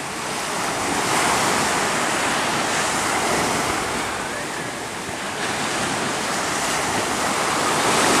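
Ocean surf: small waves breaking and washing toward shore in a steady rush, swelling about a second in and again near the end.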